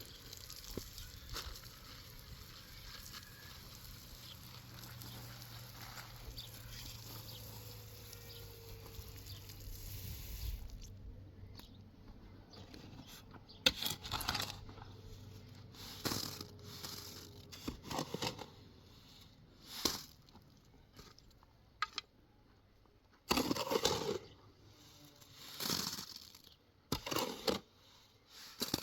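A faint steady low hum for about the first ten seconds, then a series of short, irregular scrapes.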